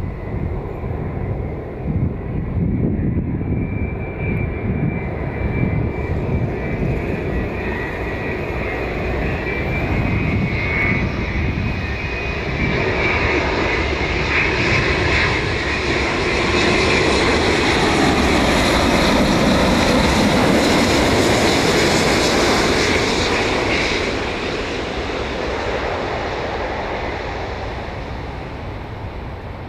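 Scoot Boeing 787 airliner's Rolls-Royce Trent 1000 turbofans on landing approach, gear down: a high engine whine over a rumble, growing louder as the jet passes close by. It is loudest about two-thirds of the way through, then fades as the plane moves off over the runway.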